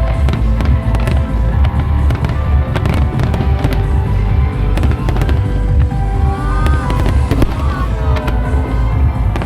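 Aerial fireworks bursting and crackling, with repeated low booms and sharp cracks, over loud music played for the pyromusical display.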